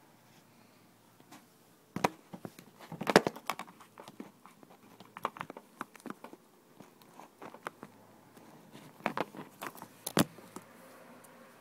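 Handling noise: irregular bursts of knocks, clicks and rustling as the recording phone is picked up, swung around and covered, loudest about three seconds in and again near the end.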